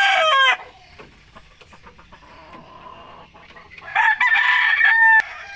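Rooster crowing twice: one crow ends about half a second in, and a second, shorter crow starts about four seconds in and ends with a falling tail.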